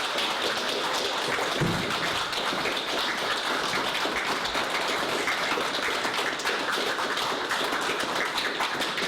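Crowd of guests applauding: dense, steady clapping.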